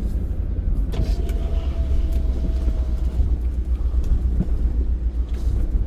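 Pickup truck driving, a steady low engine and road rumble, with a faint steady whine for about two seconds starting about a second in.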